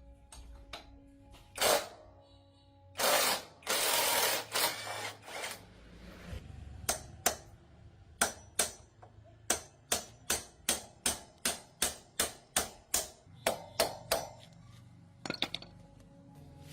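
Repair work with tools over background music: a few loud noisy bursts, then a long run of sharp, evenly spaced clicks or taps, about three a second.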